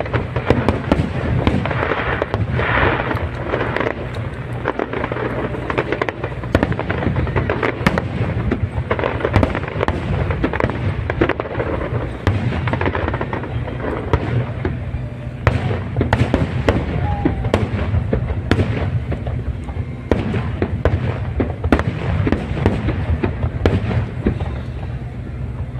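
Aerial fireworks display: a continuous barrage of shell bursts and crackle, many sharp bangs in quick succession over a steady low rumble.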